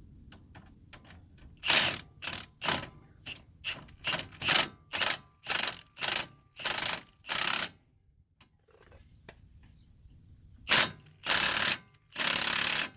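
Ratchet wrench running a strut bolt down in short repeated bursts, about two a second, then a few longer runs near the end as the bolt is snugged.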